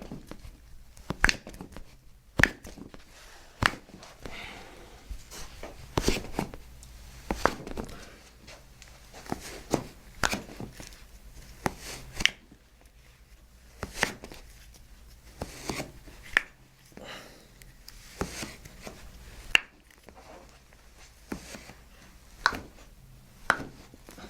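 Toe joints popping one after another as a chiropractor manipulates them: a long series of short, sharp cracks, roughly one every second, with soft handling sounds between.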